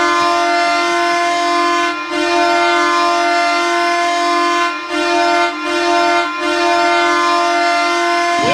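NHL goal horn blowing loud and steady in long blasts, broken by short gaps about two seconds in and a few more times past the five-second mark.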